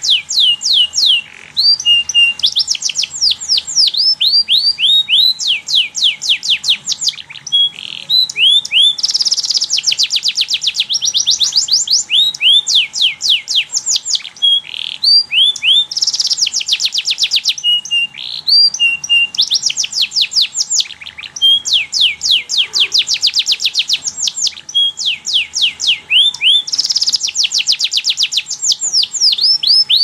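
Domestic canary singing a long, unbroken song of quick, repeated down-sweeping notes, with several bursts of very rapid trilling along the way.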